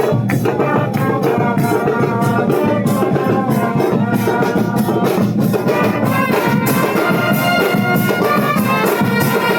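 Brass and percussion band playing continuously, trumpets and trombones carrying a tune over steady drums.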